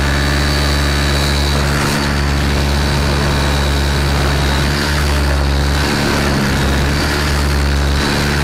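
Electric motor and spinning main rotor blades of a Thunder Tiger e700 radio-control helicopter in flight: a steady blade buzz under a high, even motor whine, its pitch shifting slightly a few times.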